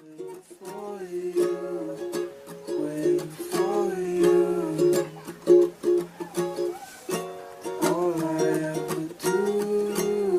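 Background music: a light tune on plucked strings, with sharp note attacks and a steady melody line.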